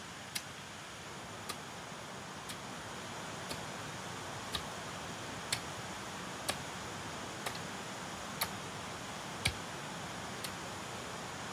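Regular ticking, about one sharp click a second, over a steady hiss.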